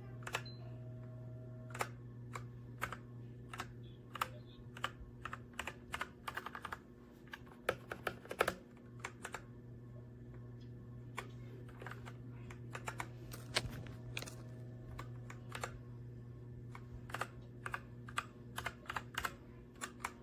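Typing on a Redragon K617 Fizz 60% mechanical keyboard: irregular runs of key clicks, some in quick flurries, over a steady low hum.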